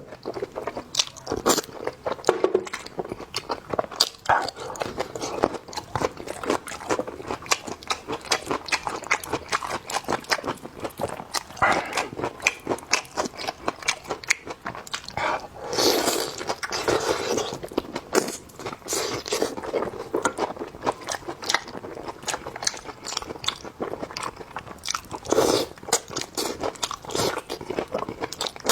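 Close-miked eating of beef tendon: continuous, irregular chewing and biting, a dense run of wet clicks and smacks with louder spells now and then.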